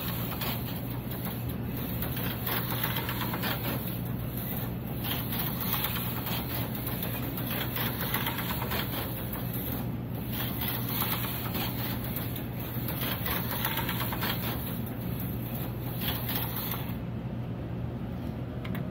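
AFX GT40 HO-scale slot car running laps on a plastic slot-car track: its small electric motor whirs and the car rattles in the slot, swelling and fading every few seconds as it comes around. The whir cuts off near the end.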